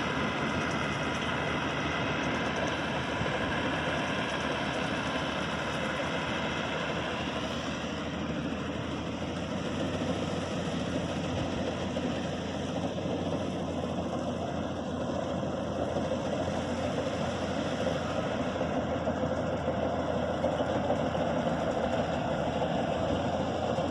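Combine harvester running steadily with a continuous engine hum. A high whining tone over it fades out about seven seconds in, leaving the steady machine noise.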